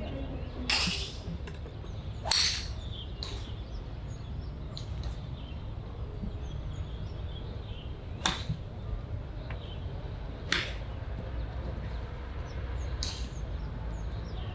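Golf irons striking balls on a driving range: about six sharp cracks at uneven intervals, two loud ones close together at the start, then single strikes a few seconds apart. Faint bird chirps and a steady low rumble sit behind them.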